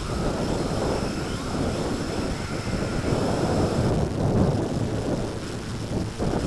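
Strong gusty wind buffeting the microphone, a loud uneven low rumble that swells and dips, with a faint steady high whine running under it.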